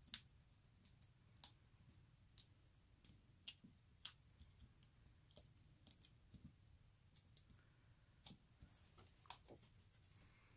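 Near silence broken by faint, scattered clicks and ticks of fingers handling cardstock and pressing foam adhesive dimensionals onto a paper panel.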